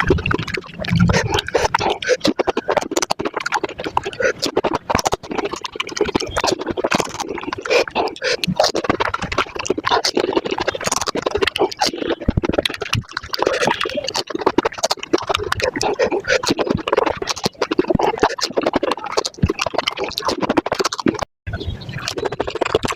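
Panipuri eating sounds sped up several times: crisp puri shells crunching and spiced water slurped, in a dense, rapid stream of mouth clicks and smacks.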